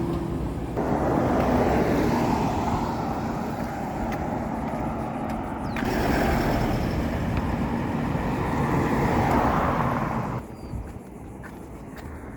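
Road traffic noise from passing vehicles, swelling twice and dropping away sharply about ten seconds in.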